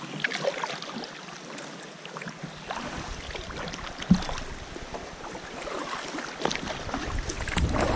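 Creek water lapping and splashing around a kayak's hull, with scattered small drips and clicks and one sharper knock about four seconds in; the water noise grows louder near the end.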